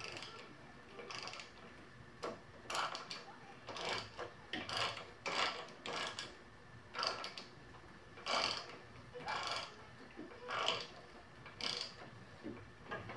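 A wrench turning a spark plug thread-repair tool in a push mower engine's stripped spark plug hole: a short metallic rasp and click with each stroke of the handle, about once a second, as the tool cuts and cleans the threads.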